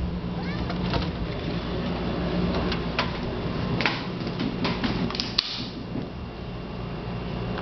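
A door being unlatched and opened: scattered clicks and knocks of the latch and door, a cluster of them with the sharpest click a little past halfway, over a steady low hum.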